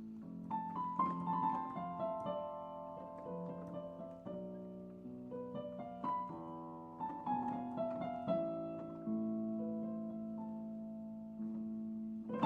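Piano playing a gentle melody of single notes and small clusters over sustained low notes.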